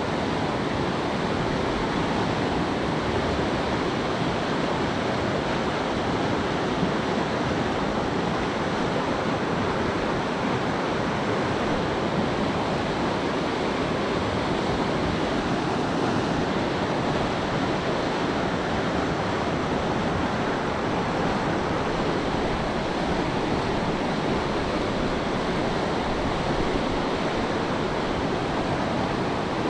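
Steady rushing of a river's flowing water, an even unbroken noise.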